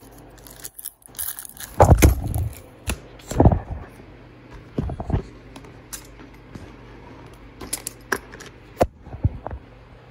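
Trading cards and pack wrappers being handled: irregular rustles, scrapes and clicks, with louder knocks about two and three and a half seconds in, over a low steady hum.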